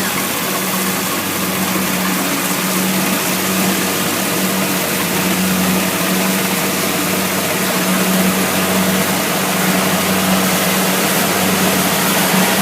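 Kubota DC70 Plus combine harvester running steadily: a constant low engine hum with an even mechanical hiss over it.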